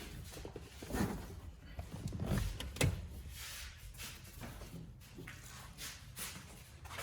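Scattered knocks, rubs and scrapes of trim being handled inside a car cabin as the roof headliner is taken down. The loudest knocks come about a second in and around two and a half to three seconds in.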